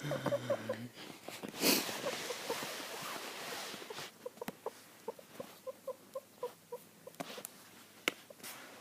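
A small pet making short, repeated squeaky chirps, several a second. A rustling noise runs from about one and a half to four seconds in.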